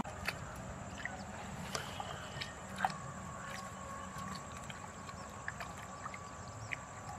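Hands groping in shallow, muddy paddy-field water while feeling for fish: small splashes, trickles and scattered sharp little clicks over a low steady background, with a faint thin steady tone underneath.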